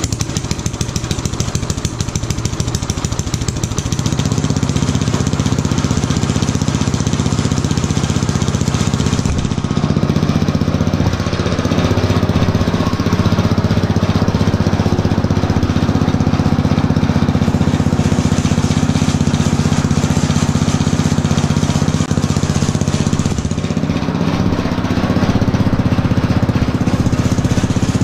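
Small garden tractor engine running steadily, exhausting through a vertical straight pipe with a homemade muffler built inside it. Its pitch steps up slightly about four seconds in, then holds.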